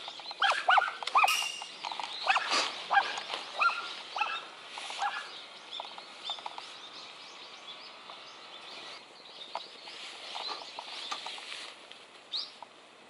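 Birds calling with short, quick chirps, busy during the first half and thinning out later.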